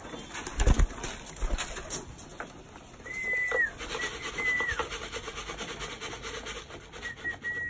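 Racing pigeons pecking barley grain from a wooden trough feeder, many small beak clicks, with a couple of heavier thumps about a second in. A high whistled note that holds and then drops sharply sounds three times in the second half.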